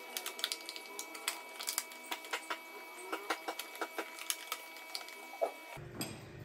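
Irregular light clicks and taps of hand tools and metal parts being handled while working on a motorcycle's battery fittings, over a faint steady hum. The background changes abruptly near the end.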